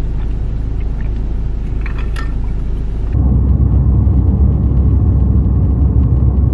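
Steady low rumble inside a car's cabin with the engine running, with a few faint clicks about two seconds in. About three seconds in it changes abruptly to a louder, heavier rumble of the car driving along a highway.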